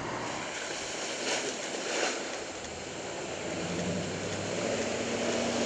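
Camouflaged 2023 Ford Super Duty pickup driving through a flooded mud hole: water splashing, with a low engine hum coming up in the second half.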